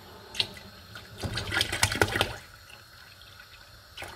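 Milk pouring from a plastic gallon jug into a steel pot already part-filled with milk and rice, loudest for about a second in the middle, with a short knock shortly after the start.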